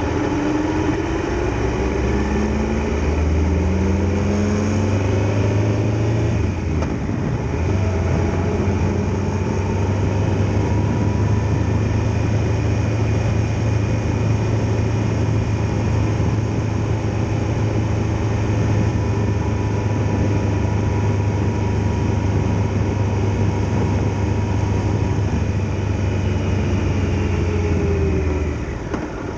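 Triumph Tiger Explorer XRx motorcycle's three-cylinder engine under way, its pitch rising as it accelerates in the first few seconds. There is a short dip about seven seconds in, then it runs steadily and eases off near the end.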